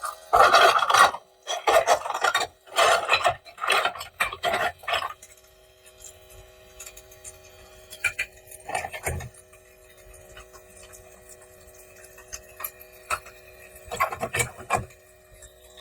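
Rasping, rubbing strokes of small plastic toy parts and packaging being handled: a run of about six strokes in the first five seconds, one more near nine seconds in, and a short cluster near the end.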